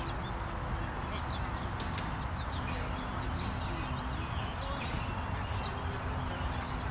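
Birds chirping in short, high calls repeated every second or so, over a steady low rumble of wind on the microphone.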